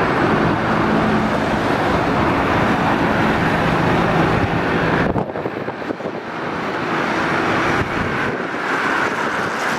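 Mil Mi-8-family helicopter flying overhead, a steady low drone mixed with city traffic and wind noise; the low drone drops away abruptly about five seconds in.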